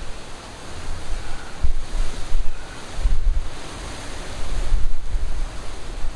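Strong gusting wind buffeting the microphone: a low rumble with a rushing hiss that swells and drops with each gust.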